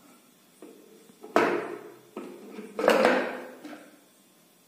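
Two loud plastic clunks about a second and a half apart, each ringing briefly, with a few lighter knocks: the food processor's plastic lid and grating disc being handled and lifted off the bowl after grating, with the motor off.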